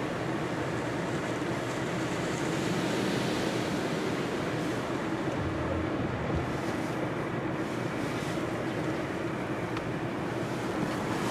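Belenger Kondor automatic car wash spraying water over a car: a steady rushing hiss of water jets, with a faint, even hum of the machinery underneath.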